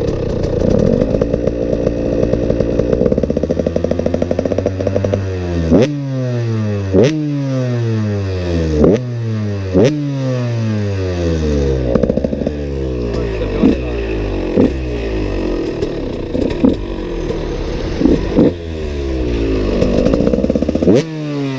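KTM SX 125 two-stroke single-cylinder motocross engine at high revs. For about five seconds it holds steady, then it is blipped sharply about once a second, the revs falling away after each blip, and near the end it is held high again.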